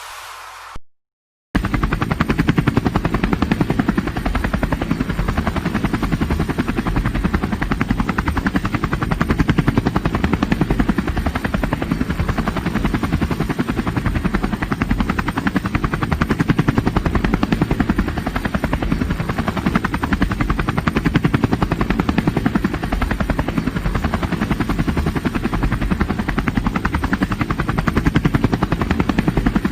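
A small DC motor spinning the propeller of a homemade matchbox toy helicopter, giving a steady, rapid fluttering buzz that starts about a second and a half in, after a brief silence.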